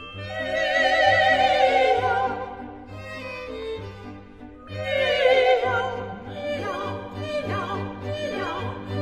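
Operatic singing with strong vibrato over orchestral accompaniment, in two long sung phrases, the second starting about halfway through.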